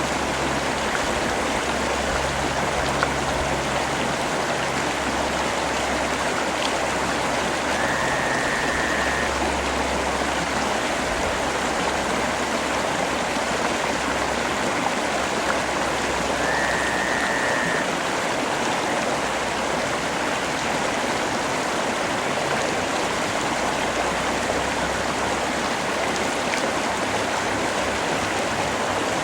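Steady rain falling, an even hiss of drops with no letup. A faint short high tone shows up twice, about eight seconds apart.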